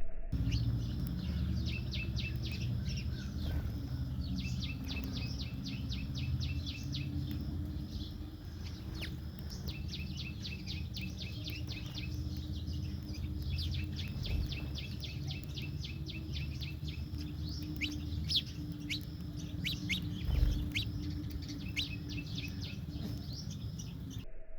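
House sparrows chirping in fast runs of short chirps, with brief pauses between runs, over a steady low hum.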